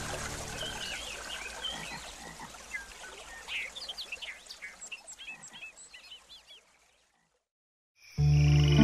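Many short chirping animal calls from a nature-sound track, over the last of the music's low drone, thinning out and fading to silence about seven seconds in. New music with steady held tones and a trill starts abruptly near the end.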